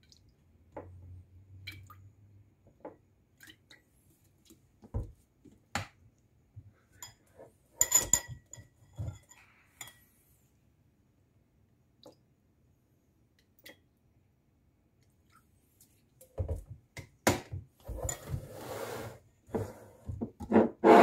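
Metal spoon stirring a seasoning sauce in a ceramic bowl, with scattered light clinks and taps. There is a cluster of ringing clinks about eight seconds in, and louder knocks and scraping near the end.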